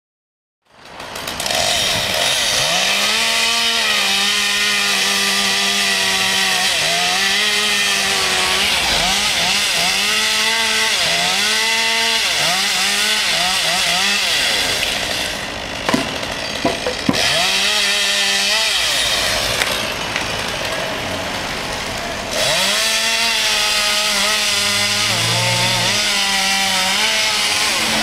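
Chainsaw cutting up in a tree, revving up and falling back again and again as it works through limbs. About halfway through it drops back, a few sharp knocks are heard, and then it revs up again.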